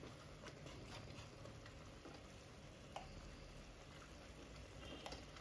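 Near silence: faint room tone with a couple of soft clicks.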